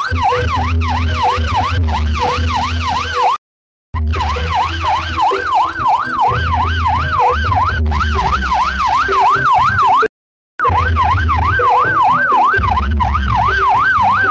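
A fast yelping siren sound, its pitch sweeping up and down about two and a half times a second, over heavy pulsing bass, played loud through a large carnival sound system. It breaks off twice for about half a second.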